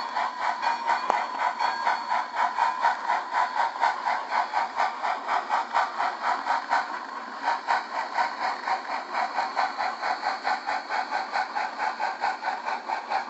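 Sound-equipped On30 model steam locomotive chuffing through its small onboard speaker, an even beat of about four to five chuffs a second.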